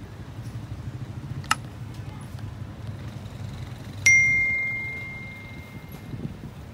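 Subscribe-button animation sound effect: a short click about one and a half seconds in, then a single bright bell ding about four seconds in that rings out and fades over about a second. Underneath is a low steady rumble.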